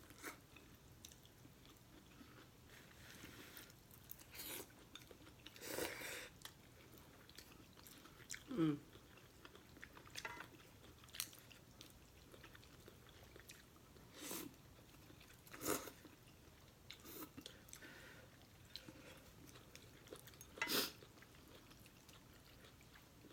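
Close-miked chewing of instant noodles, with short, scattered mouth and eating sounds every second or two.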